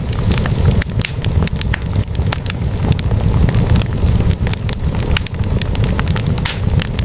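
Wood fire burning in a fireplace: logs crackling with many quick, irregular pops over a steady low rumble.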